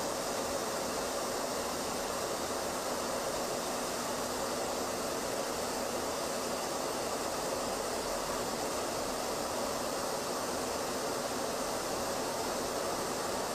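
Steady rushing of airflow and engine noise heard inside an aircraft in flight, even and unchanging, with no distinct engine tone.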